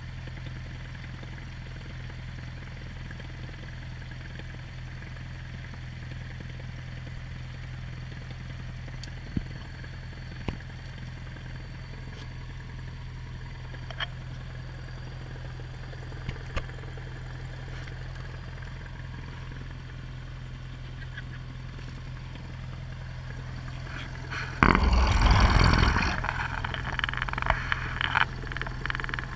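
Cessna 172P's four-cylinder Lycoming engine idling, heard as a steady low hum inside the cabin, with a few light clicks. About 25 seconds in, a sudden loud rush of noise cuts in as the power comes up to taxi, then settles into an uneven rumble.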